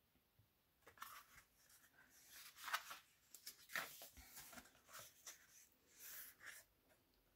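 Paper pages of a Little Golden Book picture book being handled and turned: a series of faint scratchy rustles with a few small clicks, loudest about three seconds in.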